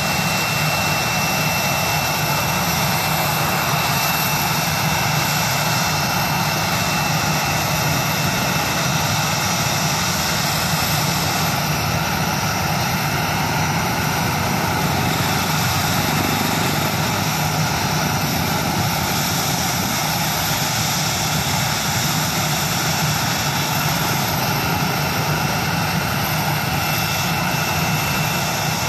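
Philippine Airlines Airbus A320's jet engines running steadily at low power as the airliner taxis slowly: an even rumble with a steady high whine over it.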